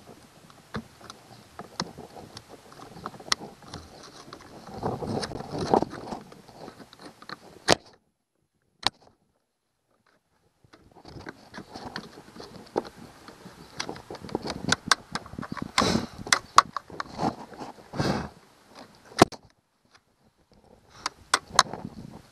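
Scraping, tapping and clicking of a metal tool on a car battery terminal as crusty corrosion is cleaned off, in irregular bursts broken by a few seconds of dead silence partway through.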